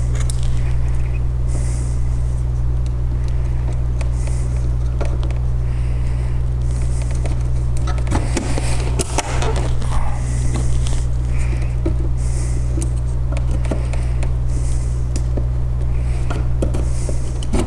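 Small plastic clicks, scrapes and handling noises as G.Skill Ripjaws V DDR4 memory sticks are pressed into the motherboard's slots and the slot latches lock them in, over a steady low hum.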